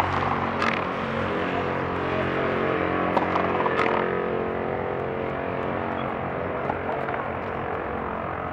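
A steady mechanical drone holding one pitch with many overtones, growing slightly quieter towards the end. Over it come a few sharp knocks, about half a second in and twice around three to four seconds in.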